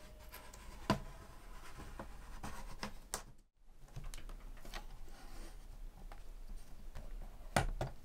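Plastic clips of an ASUS ROG Strix GL553VE laptop's bottom cover snapping loose as the case is pried apart at the side seam by hand. A sharp click comes about a second in and another near the end, with light scraping and rubbing of plastic between them.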